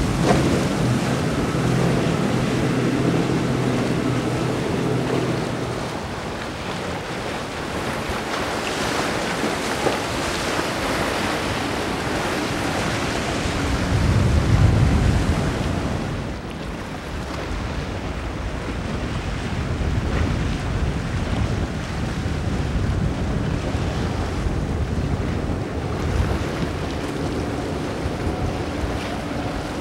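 Powerboats running fast through choppy inlet water one after another: outboard engine drone with the hulls pounding and spraying through waves, over wind on the microphone. The engine tone is clearest at the start, and the loudest moment is a low surge about halfway through as a boat passes close.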